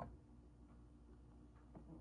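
Near silence: faint room tone with a low hum, and one soft click at the very start.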